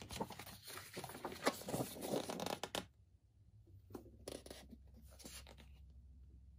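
Paper pages of a model kit's instruction booklet being flipped and handled: a busy run of rustling for about the first three seconds, then two shorter rustles about four and five seconds in.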